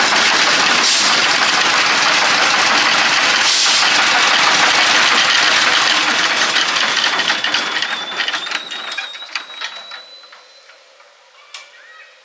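A truck engine running steadily with a fast, even ticking, then dying away over a few seconds about seven seconds in. A single click is heard near the end.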